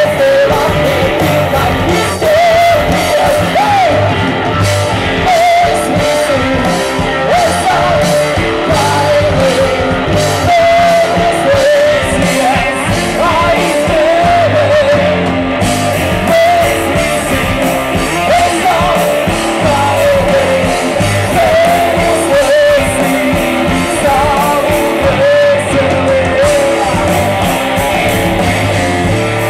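Live rock band playing loudly: a male singer over electric bass and a drum kit.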